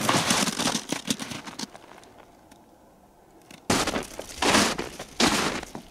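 Footsteps crunching and breaking through an ice crust on snow: a cluster of steps, a quiet gap of about two seconds, then steady steps roughly every three-quarters of a second.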